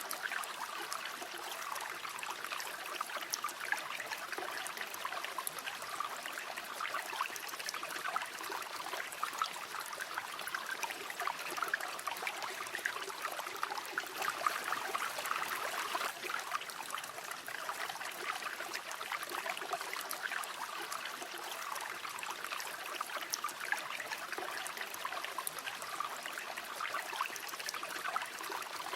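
River water flowing steadily, a continuous babbling rush with many small splashes and trickles.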